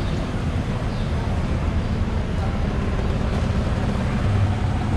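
City street noise: a steady low rumble of traffic.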